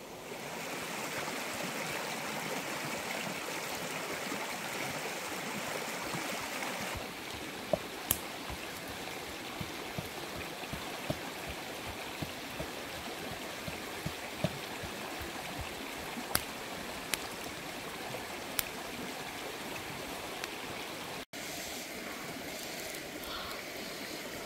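Steady rushing noise like running water, a little louder for the first seven seconds or so, with scattered sharp clicks and crackles.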